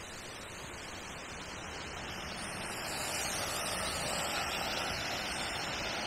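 Steady rush of a waterfall's falling water, a constant hiss that grows louder about two to three seconds in.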